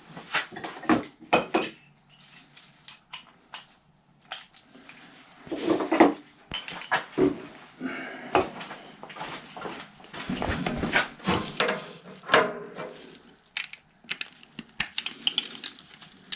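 Irregular metallic clinks, knocks and clatter of hand tools and parts being handled while working on a snowblower's belt drive.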